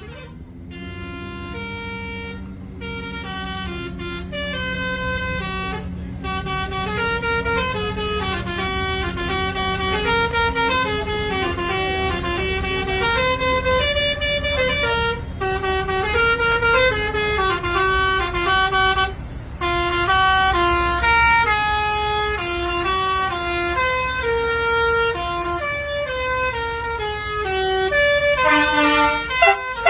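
A tune in a horn-like tone, its notes stepping up and down without a break, over a steady low drone and rumble.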